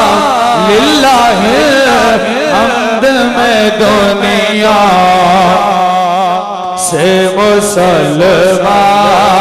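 A man sings a naat into a microphone, drawing out a long, ornamented melodic line that wavers and bends in pitch. He breaks off briefly about six and a half seconds in, then carries on.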